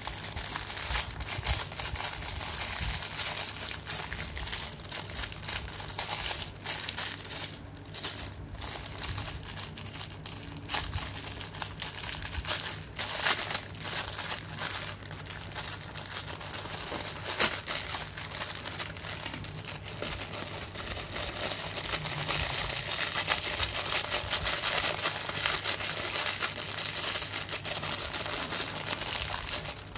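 Thin clear plastic bag crinkling and crackling as fingers handle it and open it, an uneven run of small crackles that grows busier and louder about two-thirds of the way in.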